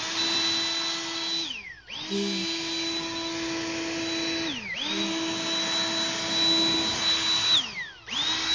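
Cordless brushless turbo blower run in short bursts, about three seconds each: each time its motor whines up to a high steady pitch with a strong rush of air, then winds down. It is cut off and restarted three times, with a fourth start near the end.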